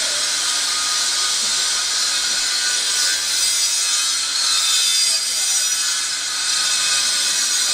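A steady high hiss with faint whining tones in it, unbroken throughout.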